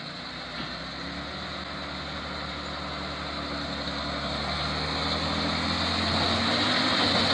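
A heavy vehicle's engine running steadily, growing gradually louder.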